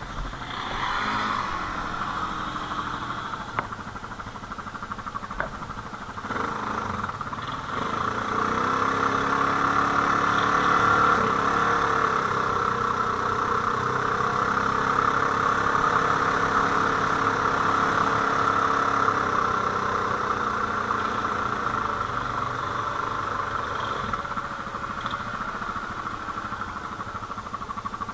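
ATV engine running, rising in pitch and loudness about seven seconds in, holding steady, then easing off after about twenty seconds.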